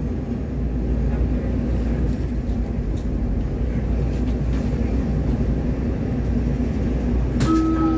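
Interior running noise of a WMATA 2000-series Metrorail car in motion: a steady low rumble of the wheels on the rails and the car's traction drive. A short steady tone sounds near the end.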